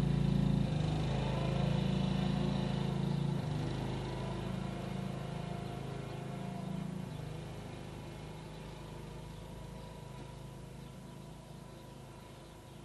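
Wolf-Garten ride-on mower's engine running as the mower drives away; its note shifts a couple of times and the sound grows steadily fainter as it pulls off into the distance. The drive cable has just been re-tensioned, and the mower is pulling properly.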